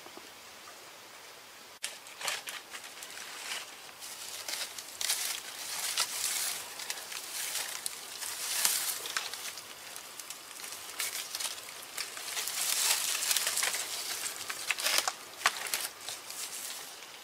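Dry fibrous sheath and dead leaves being torn and pulled off a tree trunk by hand: irregular crackling and rustling with sharp snaps, starting about two seconds in.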